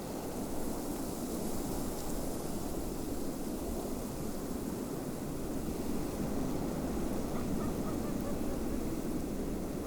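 Steady snowstorm wind blowing, a dense low rush without pauses. A few faint short sounds come through near the end.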